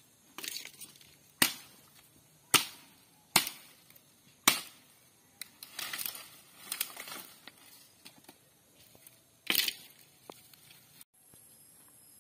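Dry wooden branches being broken up: four sharp cracks about a second apart, then a rustling, crackling clatter of dry brush, and one more crack near the end.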